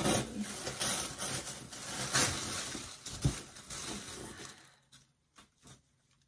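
Packaging crinkling and rustling as a clothing bundle is unwrapped, crackly and fairly loud for about four and a half seconds, then dying down to a few soft rustles and clicks.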